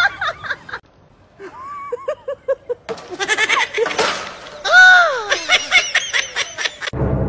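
Chickens squawking in alarm while a dog chases them: a run of short clucks, then loud, harsh cries that rise and fall.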